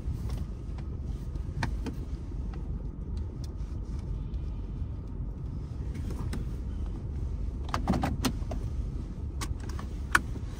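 Steady low rumble of a motor vehicle, with a few scattered clicks and taps.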